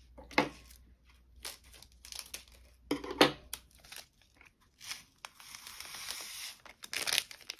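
Small plastic bag of diamond-painting drills crinkling as it is snipped open with scissors and handled. Near the end the resin drills are poured into a storage container, a steady rattling hiss for about a second and a half.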